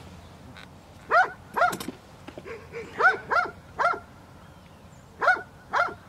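A dog barking: seven short barks in a pair, a run of three, then another pair, each rising and falling in pitch.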